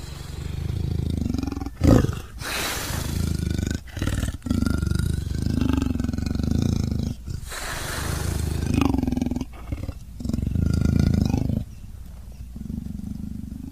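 Tiger roaring: a string of drawn-out roars with short breaks between them, the loudest opening with a sharp crack about two seconds in and the last one quieter.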